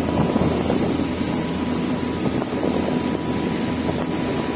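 Fishing boat's engine running steadily while under way, with water rushing along the hull and some wind on the microphone.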